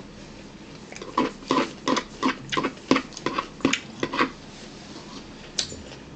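A dog barking: a quick run of about nine sharp barks, roughly three a second, starting about a second in and stopping a little past the four-second mark.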